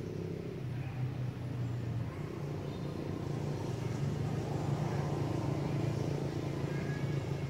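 A vehicle engine running steadily with a low hum, growing a little louder in the middle.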